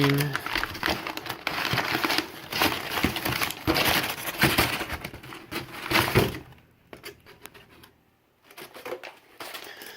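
Packaging crinkling and rustling as it is handled, dense and crackly for about six seconds, then it quietens almost to nothing, with a few faint rustles near the end.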